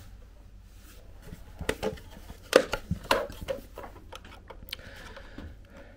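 A small flathead screwdriver prying at the clipped-in plastic top cover of a Hoover Jovis Cyclean handheld vacuum's handle, making a run of plastic clicks and scrapes. The loudest click comes about two and a half seconds in, with a few more near the end.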